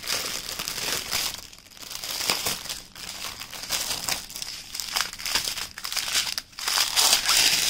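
Crinkling of small plastic bags of diamond painting drills being picked up and handled, in irregular bursts with short pauses.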